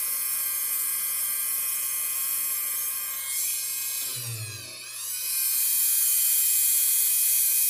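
Dremel rotary tool running at high speed with a steady high whine. About four seconds in, its pitch sags and recovers as the bit is pushed into a green abrasive pad, and after that it runs louder.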